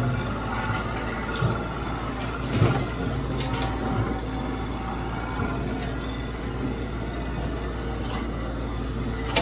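Kioti CK3510SE compact tractor's diesel engine running steadily, with a couple of dull knocks in the first three seconds.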